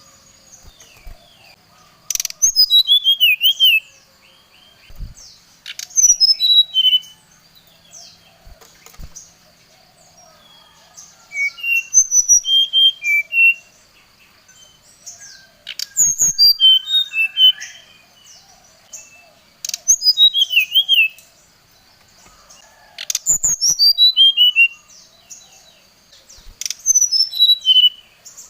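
Brown-chested jungle flycatcher (SRDC) singing: repeated phrases of clear whistled notes tumbling down in pitch, one every three to four seconds, with shorter chirps and warbles between them.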